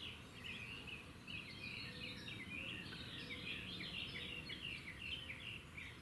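Faint, continuous twittering of small birds: many quick chirps in close succession over a low background hiss.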